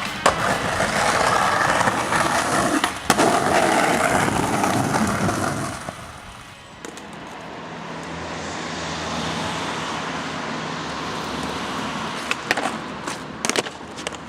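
Skateboard wheels rolling on hard ground, with a sharp clack of the board just after the start and another about three seconds in. The rolling fades around six seconds, then picks up again, and a few more clacks of the board come near the end.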